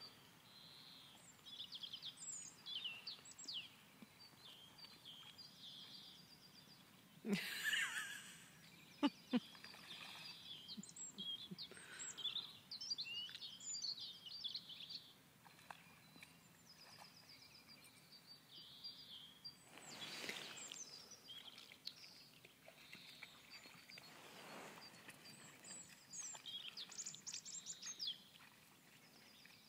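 Small songbirds chirping and twittering repeatedly in short high calls, with a few brief rushes of noise and a couple of sharp clicks.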